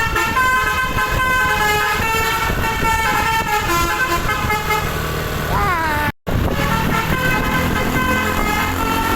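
Bus telolet horn: a multi-tone musical air horn playing a quick tune of shifting notes over the bus engine running. The notes slide downward a little past halfway. The sound then cuts out for a moment before more horn tones and engine sound resume.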